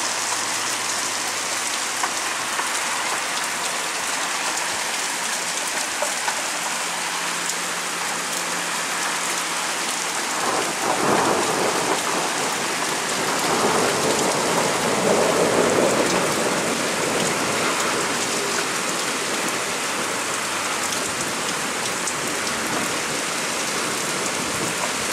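Steady rain falling, with a rumble of thunder building about ten seconds in and fading away over some six seconds.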